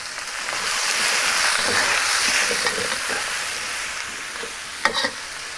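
Shredded cabbage and pumpkin sizzling in a hot wok as they are stirred and tossed with a metal ladle and spatula. The sizzle swells about a second in, then slowly eases, with a few sharp knocks near the end.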